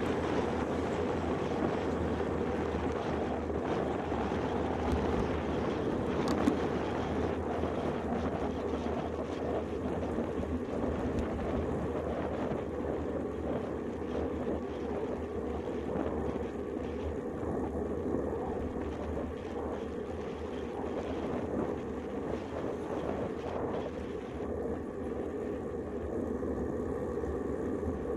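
Steady wind noise rushing over the microphone of a handlebar-mounted camera on a moving road bicycle, with one sharp click about six seconds in.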